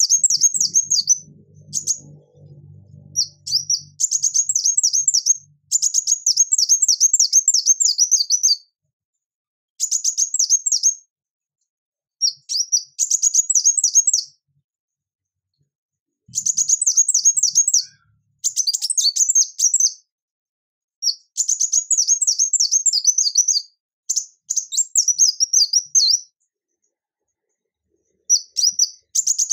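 Male ruby-cheeked sunbird singing: rapid, high-pitched notes, each sliding down in pitch, strung into phrases of one to three seconds with short pauses between them.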